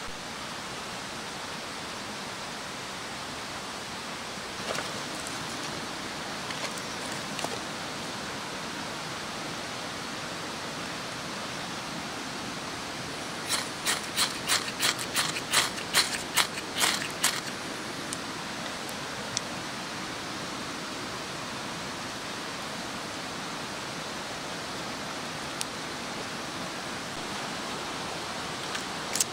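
A ferro rod scraped hard with a striker about ten times in quick succession, throwing sparks onto a pile of wood shavings to light a fire. Under it runs a steady rushing noise.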